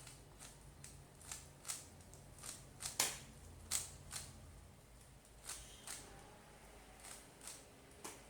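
Rubik's cube layers being turned by hand: a string of short plastic clicks, about two a second with brief pauses, the loudest about three seconds in.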